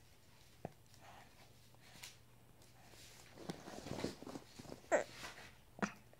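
Baby making short grunts, breaths and small vocal sounds close to the microphone, starting about three seconds in, with a couple of soft clicks.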